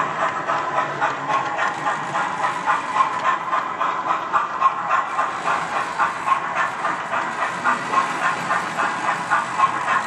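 Sound decoder of a Hornby A4 4469 Gadwall model steam locomotive playing synthesised steam-exhaust chuffs through its small onboard speaker: a steady, rapid rhythmic chuffing, about four beats a second, with a hiss.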